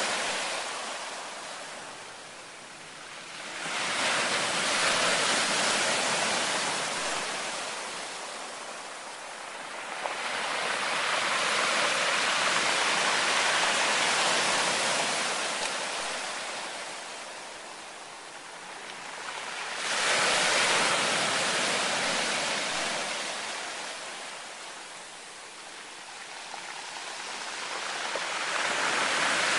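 Ocean surf breaking on a stony beach: a steady hiss of rushing water that swells with each breaking wave and fades as it washes back, a new surge every several seconds.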